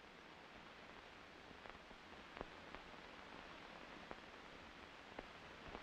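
Near silence: the faint steady hiss of an old film soundtrack, with a few faint scattered clicks.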